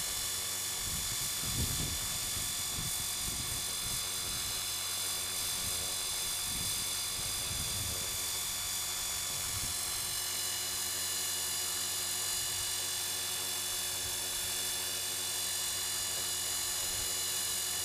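A 450-size electric RC helicopter hovering steadily in place, giving a constant whine from its motor, gears and rotors. Low wind rumble buffets the microphone at times in the first half.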